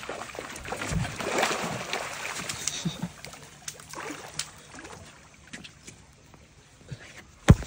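Water splashing and knocking in a small boat as a hooked amarillo catfish is pulled in from a trotline, with scattered clicks and one sharp, loud thump near the end.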